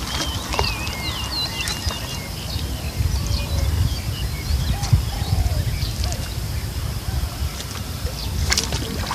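Outdoor ambience: small birds chirping in short rising and falling calls, busiest in the first two seconds, over a steady low rumble and a constant high hiss, with a couple of sharp clicks near the end.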